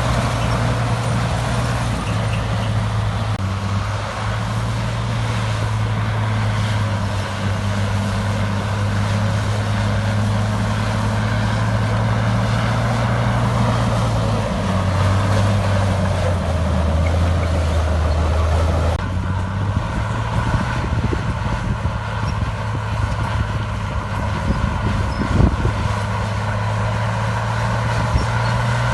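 Heavy diesel engine of earthmoving machinery running steadily, its pitch dropping about halfway through, with an abrupt change in the sound about two-thirds in and a single sharp knock near the end.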